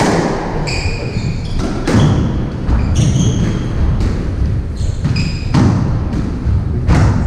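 Squash rally: the ball hitting rackets and the court walls in repeated sharp smacks, with short high squeaks from the players' court shoes on the wooden floor.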